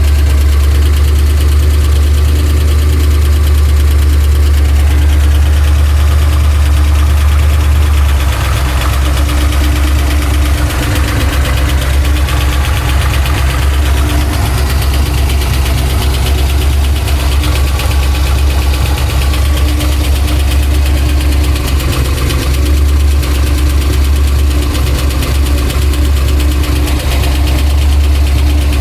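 Pontiac Trans Am engine running at idle with a deep, rhythmic ticking knock heard all around the engine; the owner fears a major internal part, perhaps the crankshaft, with oil pressure also reading erratically.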